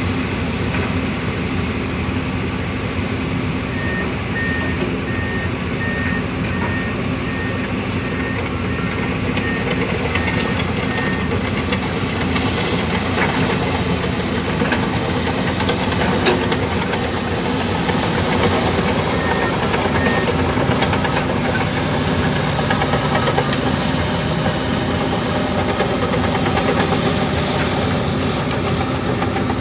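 Komatsu D65 crawler bulldozer working: its diesel engine runs steadily under load while the steel tracks clank. An alarm beeps in short, even pulses for several seconds, and briefly again later.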